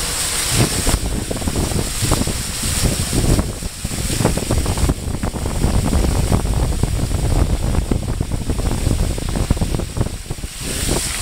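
Wind buffeting the microphone of a camera held at a moving vehicle's window, over the rushing hiss of rain and water spray, with a heavy low rumble and small irregular knocks underneath.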